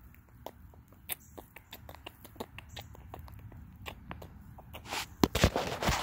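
Phone handling noise: scattered light clicks and crackles, then about five seconds in a louder rustle of shirt fabric rubbing over the microphone.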